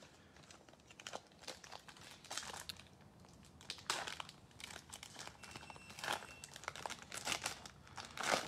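Wrapper of a Topps baseball card pack being torn open and pulled apart by hand: irregular crinkles and rips, the loudest just before the end.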